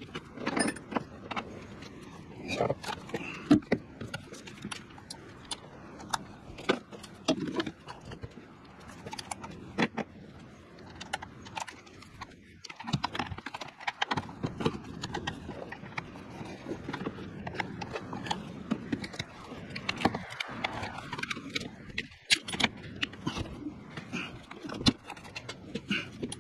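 Irregular metallic clicks, clinks and light scrapes of hand tools and parts being handled in a truck's engine bay.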